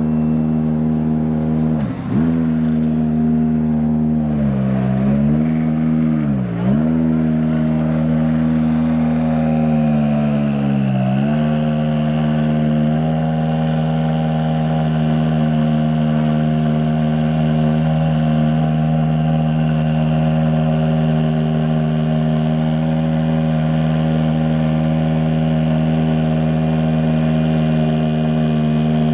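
Ferrari P80/C's twin-turbo V8 idling. The revs sag briefly and pick up again about four times in the first dozen seconds, then hold a steady idle.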